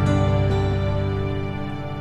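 Soft instrumental background music: a held chord of sustained notes, slowly fading.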